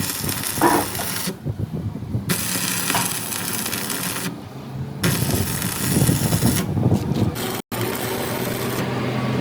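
Workshop metalworking noise from repair work on a steel truck rim, in several short clips cut together, with a few brief clinks.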